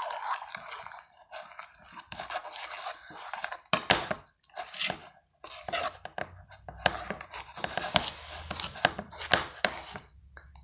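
Homemade slime being stirred and squished by hand: a run of irregular crackly, sticky handling noises broken by several sharp clicks.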